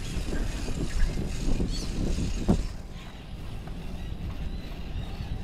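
Wind buffeting the microphone during a bicycle ride, a steady low rumble, with scattered knocks and rattles over the first half and one sharp click about two and a half seconds in; it eases a little after that.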